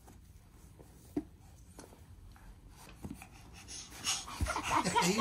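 A baby laughs about four seconds in, after a quiet stretch with a light tap or two.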